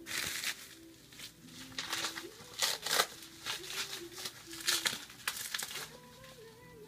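Plastic wrapping on a K-pop CD album crinkling and tearing as it is opened, in irregular rustling bursts, loudest about three seconds in.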